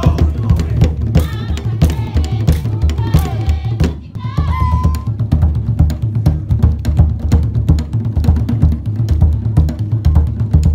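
Fast, driving Marquesan dance drumming: a dense, even pattern of deep drum beats with sharper percussion strokes. In the first half, a few voices call out over the drums.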